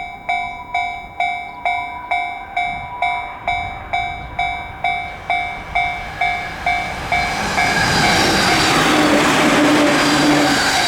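Japanese level-crossing warning bell ringing about twice a second as a 10-car JR East E231-series electric train approaches. The train's running noise swells and drowns out the bell about seven seconds in, then passes loud and steady with wheel and motor hum.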